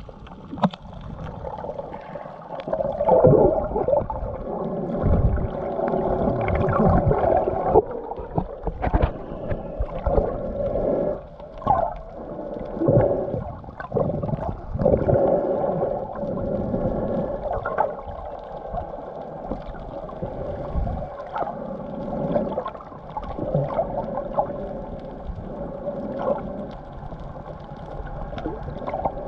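Muffled underwater sound picked up by a camera in its waterproof housing: water sloshing and gurgling, irregular knocks and thuds, and a faint steady hum.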